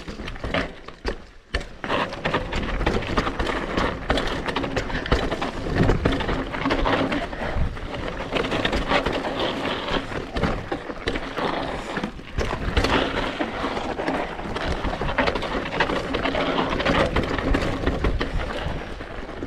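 Hardtail mountain bike riding down a loose, rocky dirt trail: tyres crunching over loose dirt and stones, and the bike rattling over rocks in a constant clatter of small knocks.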